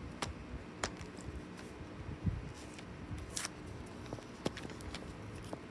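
Duct tape being pulled off a toy soda can, with scattered small clicks and rustles of handling and a short tearing rasp about three and a half seconds in.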